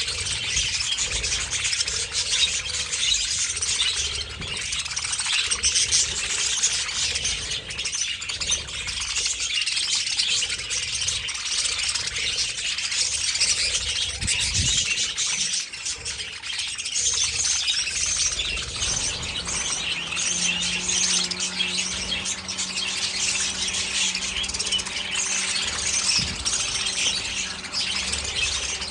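Many budgerigars in a colony aviary chattering and chirping at once, a dense, unbroken flock noise. A steady low hum joins in about two-thirds of the way through.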